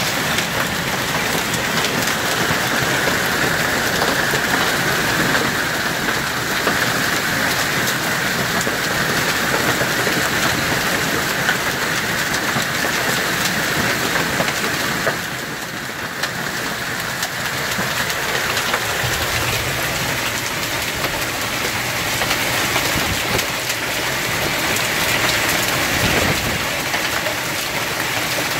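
Hailstorm: a dense, continuous patter of hailstones striking the ground and surroundings, easing a little about halfway through before picking up again.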